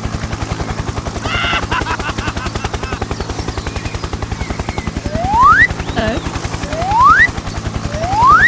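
A small engine chugging in a fast, even beat, with three short rising whistles in the second half, each about a second and a half after the last.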